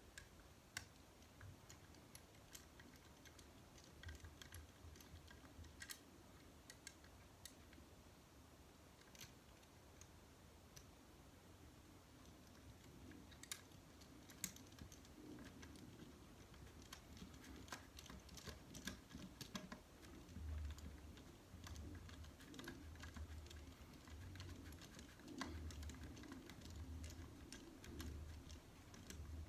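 Faint scattered clicks and taps of small plastic and metal RC crawler chassis parts and screws being handled and fitted by hand. In the second half they come with soft low thumps about once a second.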